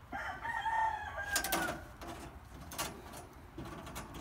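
A rooster crowing once, a call of about a second and a half that drops in pitch at the end. A few sharp clicks follow.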